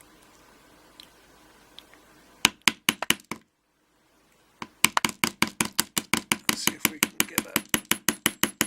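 Sharp metal-on-metal taps of a rod being struck as a punch against a Union 5-pin euro cylinder lock while it is dismantled. About two and a half seconds in come five quick taps, then after a short pause a steady run of about twenty taps at roughly five a second.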